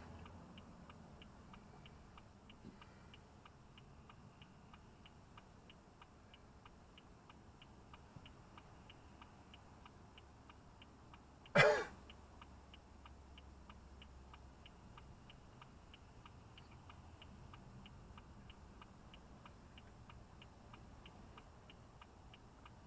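Faint, steady ticking at about two ticks a second, with a person clearing their throat once, briefly and loudly, about halfway through.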